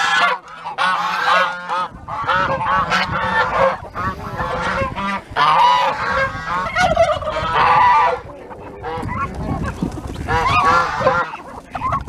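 A flock of Chinese geese honking over and over in short, arching calls, many overlapping. From about two seconds in, a low rumbling noise runs beneath the calls.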